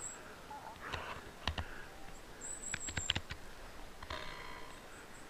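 Footsteps and small knocks on a woodland trail, with thin high-pitched chirps in the background.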